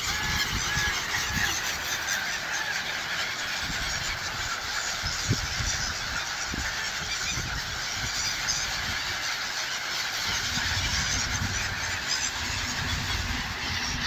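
A large flock of gulls calling all at once, a dense, unbroken chorus of many overlapping cries, with a low rumble beneath.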